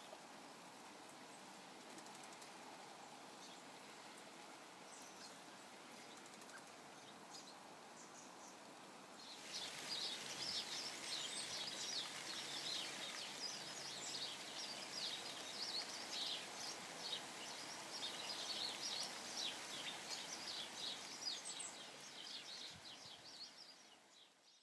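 Soft steady hiss of rain with an occasional chirp. About nine seconds in, a dense chattering of small birds' quick high chirps begins and keeps going, fading out at the very end.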